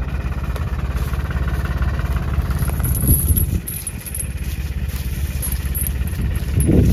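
Tractor engine running steadily with a low, even throb, pulling a chained boulder under load; it eases briefly a few seconds in.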